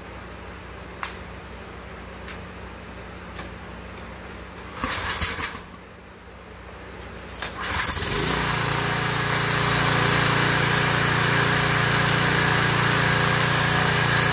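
Small gas engine being started: a short sputter about five seconds in dies out, then on the next try it catches at about eight seconds and settles into a steady run. It started easily on fresh gas.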